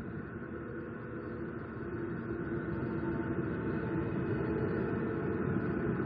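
Steady low rumbling background noise picked up by an outdoor nest camera's microphone, growing a little louder toward the end.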